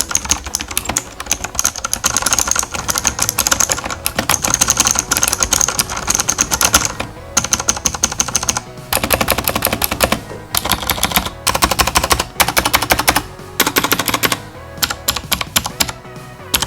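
Fast typing on a V7 GK110 mechanical keyboard with Otemu Blue switches, clicky Cherry MX Blue clones: a dense run of sharp key clicks, broken by several short pauses.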